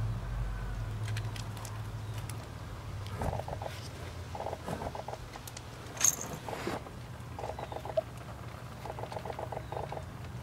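Kittens scrambling and shuffling on loose gravel around their nursing mother cat, in several short bursts of rapid scratching, with one sharper, louder scuff about six seconds in. A low hum runs under the start and fades out after about two seconds.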